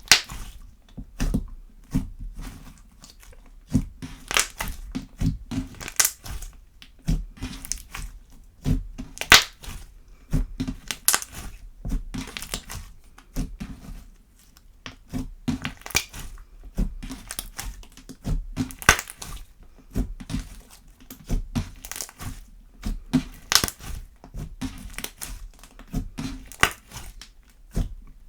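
Slime being kneaded and squeezed by hand, with irregular sharp clicks and pops as air pockets in it burst, several a second.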